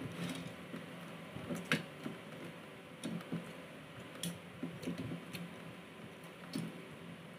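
Close-up eating sounds: chewing and small wet smacks, with scattered light clicks as fingers pick at grilled fish on a plate, over a steady faint hum.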